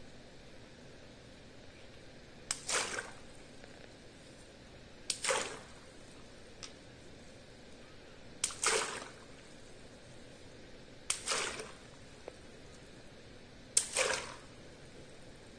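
Small latex water balloons popped one at a time with a pin, five times about every two and a half to three seconds: each a sharp pop followed by a short splash of water.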